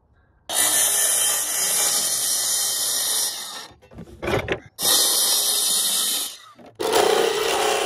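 Power tool fitted with an ordinary wood bit cutting polycarbonate greenhouse panel, motor whining under a loud cutting noise. It runs for about three seconds, gives a few short spurts, runs again, and starts once more near the end with a lower sound.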